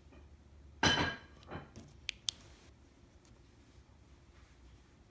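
Handling noises: a loud scrape or rustle about a second in, a softer one shortly after, then two sharp clicks about a fifth of a second apart.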